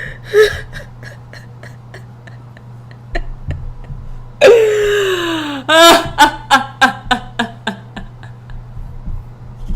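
A person eating with wet mouth clicks and smacks, over the steady low hum of an air conditioner. About four and a half seconds in comes a loud, long wail falling in pitch, followed by a run of short sobbing cries at about four a second, dropping in pitch.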